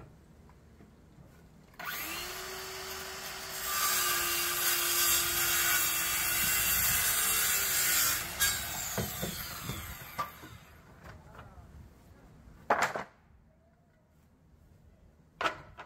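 Handheld circular saw spinning up and cutting across a wooden board, loud for about four seconds before its motor whine winds down. Two sharp knocks follow near the end.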